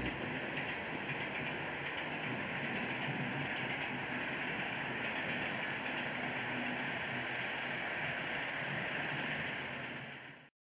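Model train running along the track: a steady rushing rumble of its wheels on the rails with a faint low motor hum. It fades out near the end.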